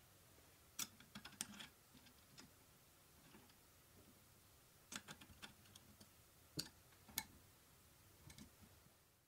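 Faint, scattered small clicks and taps of metal parts being handled: a hex key being set into a socket cap screw on an aluminium bracket that carries a belt idler pulley.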